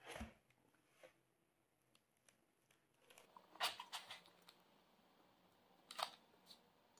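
Near silence broken by a few faint, brief scrapes and clicks, once at the start, a small cluster a little past halfway and one more near the end: hands handling and opening a polystyrene foam box of glass ampoules.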